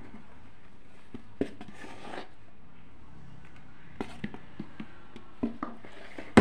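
Scattered light clicks and knocks of kitchen handling as flour is tipped from its container onto crumbly cookie dough in a plastic bowl, with a brief rustle about two seconds in and a sharper knock at the very end.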